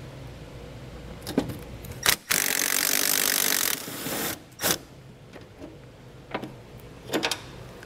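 Cordless impact driver hammering for about a second and a half as it turns an 8 mm socket on a swivel extension to break loose and remove a fastener, then running more quietly for a moment. A few sharp clicks of metal on metal come before and after it.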